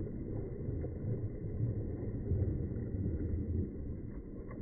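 Wind buffeting the microphone outdoors: a low, uneven rumble that swells and eases.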